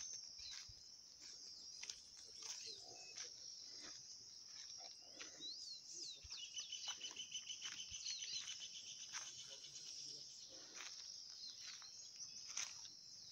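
Faint, steady high-pitched drone of insects, with birds calling over it. A bird gives a rapid trill of repeated notes from about halfway through.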